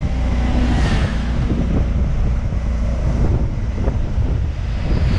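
Wind rushing over a helmet-mounted microphone on a moving motorcycle, with the motorcycle's engine running underneath. The wind swells briefly about a second in.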